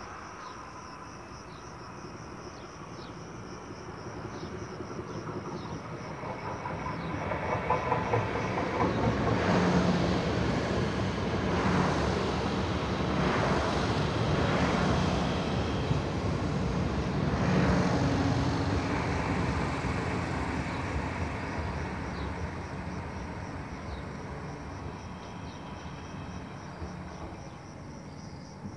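Siemens Desiro electric multiple unit passing below and running away: the rush of wheels on rail and running gear swells, is loudest for several seconds while the train is closest, with a few sharper clacks, then slowly fades.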